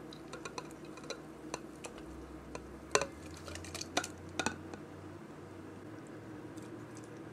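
Light clinks and taps of a blender jug against a glass measuring jug as thick blended citrus pulp is poured across, with a few louder knocks about three and four seconds in.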